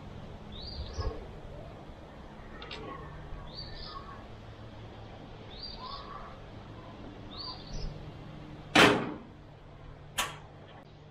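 A bird calls over and over, a short rising note repeated every couple of seconds. Near the end come two sharp metal bangs about a second and a half apart, the first the loudest: the sawmill's steel blade-wheel cover being shut and pressed closed.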